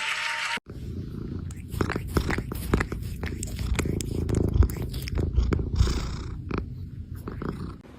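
Cat purring close to the microphone: a loud, low rumble with many short clicks through it.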